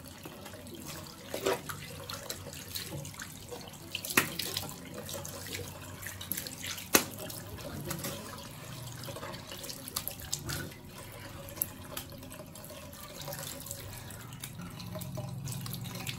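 Water running from a bathroom tap into a sink, with splashing as a face is washed with cupped hands. A few sharper splashes stand out, the loudest about seven seconds in.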